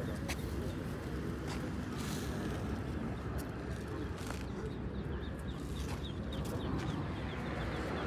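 Bird-market ambience: caged pigeons and poultry calling, with short high chirps in the middle, over a steady low background of market noise and faint voices.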